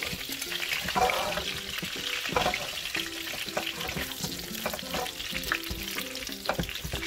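Pork belly sizzling in its own rendered fat in a wok, with a metal slotted turner clicking and scraping against the pan as pieces are lifted out. Background music plays underneath.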